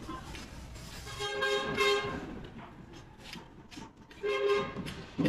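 A vehicle horn sounding twice, a held blast of about a second followed about three seconds later by a shorter one, with a few light knocks in between.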